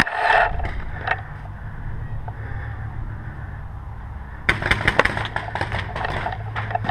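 Paintball marker shots. After a lull with a low rumble, a quick, uneven string of shots starts about four and a half seconds in and runs on.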